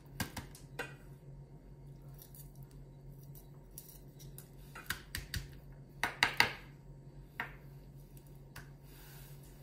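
Kitchen knife slicing a hot red chili pepper on a plastic cutting board: scattered taps of the blade on the board, with a quick run of several sharper taps about six seconds in.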